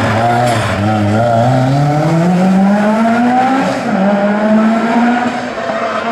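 Rally car engine accelerating hard, its pitch climbing steadily through the rev range, then dropping briefly at a gear change about four seconds in before holding high revs.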